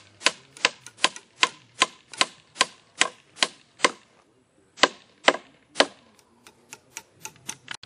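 Hammer driving a nail through a wooden brace into a wooden pole: steady blows about two and a half a second, a pause of about a second, three more blows, then lighter, quicker taps near the end.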